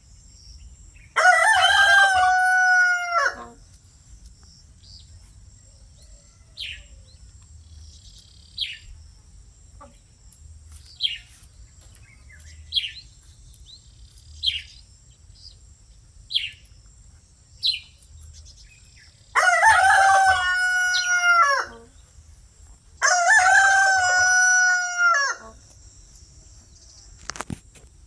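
Rooster crowing three times, each crow about two seconds long, the second and third close together. Short, high chirps from a small bird fall between the crows, over a steady high insect drone.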